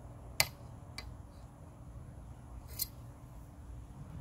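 Three sharp clicks from small metal hardware being handled: the loudest about half a second in, a fainter one at about a second, and a short rattling click near three seconds.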